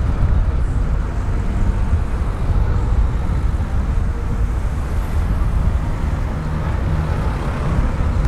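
Double-decker bus diesel engines running by the roadside: a steady low rumble.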